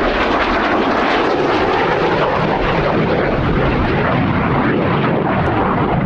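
Jet noise from a MiG-17F's (Lim-5) VK-1F turbojet as the fighter flies its display: a loud, steady rushing sound.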